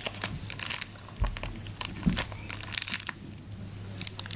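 Crinkling and crackling of a small plastic Shopkins blind bag being handled and opened: many short, irregular crackles.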